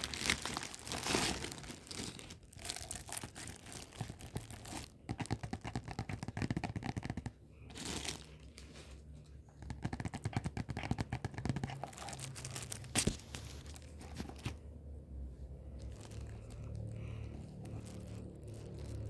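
Packaging being handled, crinkled and torn open by hand, in irregular bursts of crackling and rustling with short pauses; the handling quietens near the end.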